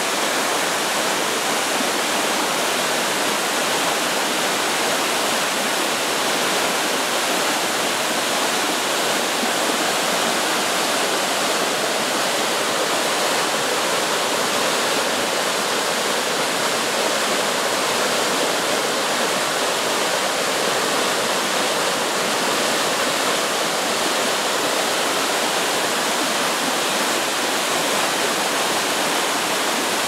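Tall tiered waterfall and the rocky stream below it, a steady rush of falling and cascading water.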